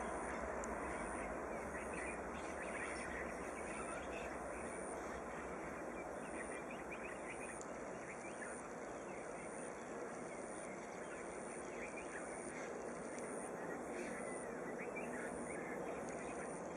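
Distant jet noise from an Airbus A330-223's twin Pratt & Whitney PW4168A turbofans at takeoff power as the airliner lifts off and climbs away, a steady rushing sound. Small birds chirp faintly over it.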